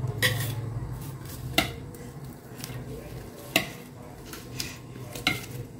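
A handful of small, sharp clicks and sticky taps, a second or two apart, as oiled fingers pinch and press pleats into the soft steamed-rice-flour dough of a modak shell, over a faint low hum.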